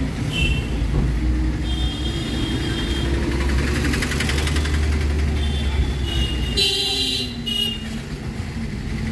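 Busy street traffic heard from inside a moving vehicle: a steady low engine and road rumble, with horns of surrounding vehicles honking several times, loudest about seven seconds in.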